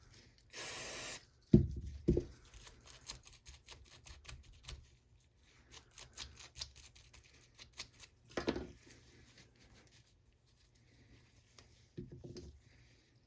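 Hand-cleaning of AR-15 bolt parts: a short hiss near the start and two sharp knocks, then a run of quick, light brushing or scrubbing strokes. Another knock comes in the middle and a few small clacks near the end.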